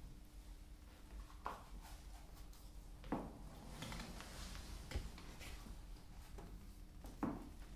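A few soft knocks and handling sounds a second or two apart in a quiet room, the sounds of a person working with a plastic bucket and a wooden crate; the sharpest knocks come about three seconds in and near the end.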